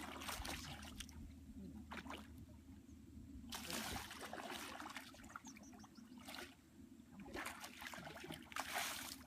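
Faint water splashing and trickling in irregular bursts, the longest near the end, over a low steady hum.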